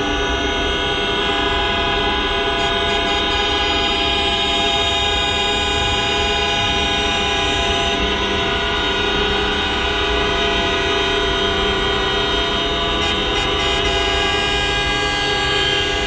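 Many vehicle horns from stopped traffic sounding together in one continuous, unbroken chorus of steady tones. They mark the nationwide minute of remembrance for Atatürk on 10 November.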